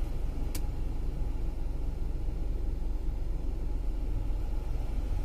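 2014 Volkswagen Polo petrol engine idling, heard from inside the cabin as a steady low rumble, with the climate-control blower running. A single click about half a second in.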